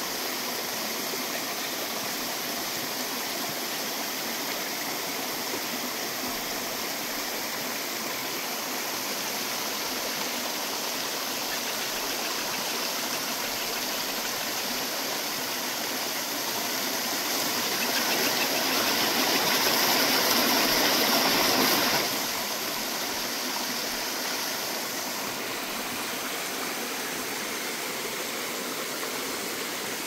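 A shallow mountain stream running over rocks, a steady rush of water. It swells louder for a few seconds past the middle, then drops back suddenly.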